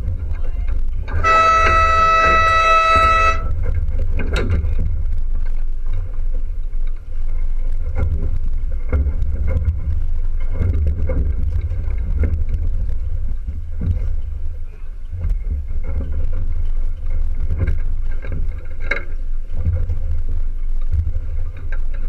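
Steady low wind rumble on the microphone, with one horn blast lasting about two seconds about a second in: a sailing race start signal.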